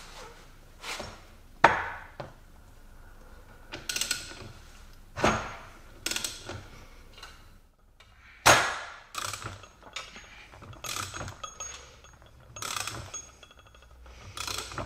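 Steel bearing-puller parts and hand tools clinking and knocking against a differential carrier on a workbench: a run of separate sharp metallic knocks, several with a short ringing after them.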